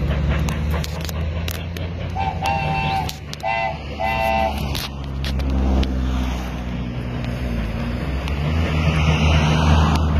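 Steam locomotive whistle sounding three short chord-like blasts about two to four and a half seconds in, over a steady low rumble, with a hiss building near the end.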